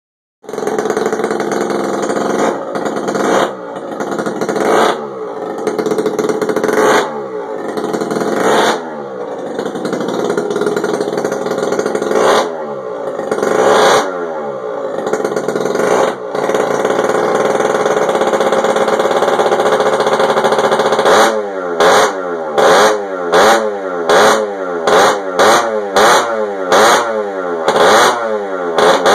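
Yamaha Vino Classic scooter engine through a tuned, loud aftermarket exhaust, revved by hand on the throttle: repeated blips with the pitch falling back after each, a few seconds held at high revs past the middle, then quick short blips, about one and a half a second, near the end.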